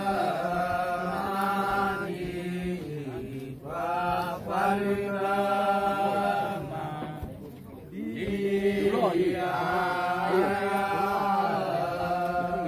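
Men's voices chanting in long held notes, in three phrases with short breaks about three and a half and seven and a half seconds in.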